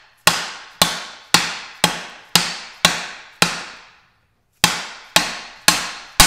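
Hammer blows on a PVC pipe used as a driver, knocking a press-fit thrust washer down onto the gear shaft of a Porsche 996 manual transmission. Seven blows come about two a second, then a pause of about a second, then four more, each ringing briefly. The washer is a tight fit and takes repeated blows to seat.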